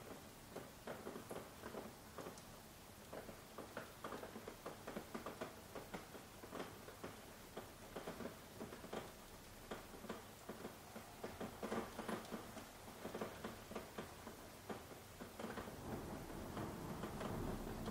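Soft rain, individual drops tapping irregularly as several light ticks a second over a faint hiss. A low rushing sound swells near the end.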